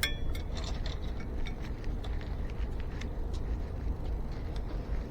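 Metal tools and e-bike brake parts being handled during work on a brake cable: a sharp metallic clink that rings briefly at the start, then scattered light clicks and taps over a steady low rumble.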